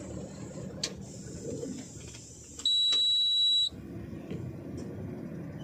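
A single high-pitched electronic beep, held steady for about a second and starting and stopping abruptly, over a low steady rumble.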